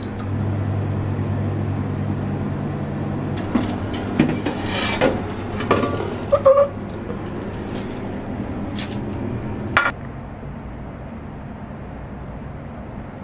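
Electric oven running with a steady low hum, then clicks and clatter as the oven door is opened and the metal baking tray is drawn out on its rack. The last few seconds are quieter.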